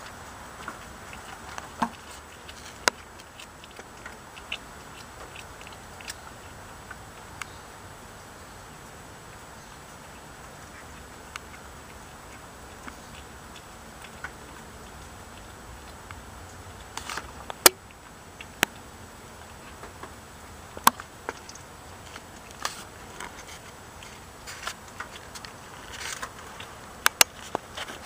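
A kitten chewing raw catfish: irregular sharp clicks and crunches of its teeth working the fish, a few louder ones past the middle and near the end.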